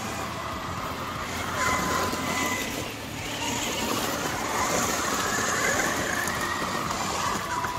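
Losi Super Baja Rey 2.0 RC truck's brushless electric motor and drivetrain whining at speed on 8S power, over tyre noise on gravel. The whine holds steady, drops briefly about three seconds in, then rises and falls in pitch as the truck speeds past and turns.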